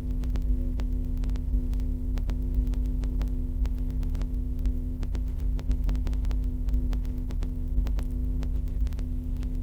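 Steady electrical mains hum with a low buzz, its tones held level throughout, sprinkled with many small irregular clicks.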